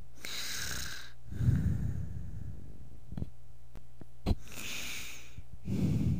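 Slow, heavy breathing: a hissing breath near the start and again near five seconds, each followed by a low rumbling one. Between them come a few faint clicks and one sharper click.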